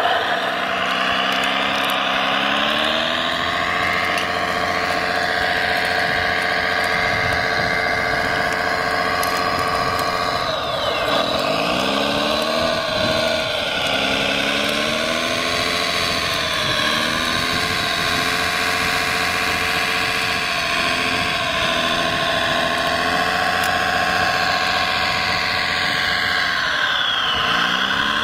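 Radio-controlled Caterpillar D9 bulldozer model's drive whining steadily as it tracks through mud and pushes it with the blade, the pitch sliding up and down as it speeds up and slows down, most clearly about eleven seconds in and near the end.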